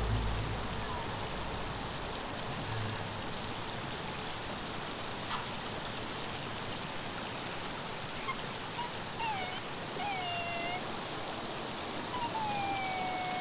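A river running steadily over stones, with a steady rush of water. In the second half there are several short whistle-like calls that fall in pitch, and the last of these is longer.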